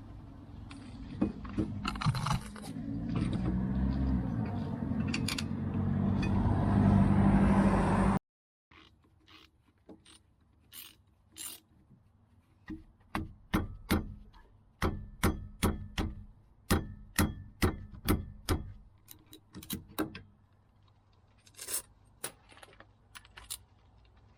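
A low rumbling noise grows louder for about eight seconds and cuts off suddenly. It is followed by a long run of sharp, irregular metal clicks and clinks from hand tools and brake caliper parts being handled.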